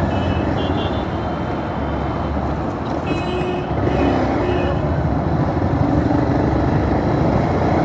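Bajaj Pulsar 220F's 220 cc single-cylinder engine running while the bike is ridden slowly through city traffic, mixed with wind and road noise on the rider's camera microphone. A few short high beeps from surrounding traffic come about half a second in and again around three seconds in.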